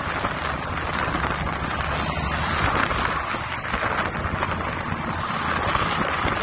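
Steady wind rushing over the microphone of a camera in a car driving at speed, mixed with tyre and road noise.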